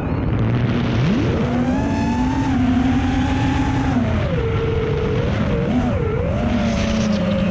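FPV racing quadcopter's brushless motors whining. The pitch rises sharply about a second in as the throttle is punched, holds, drops near four seconds, wavers briefly, then slowly falls.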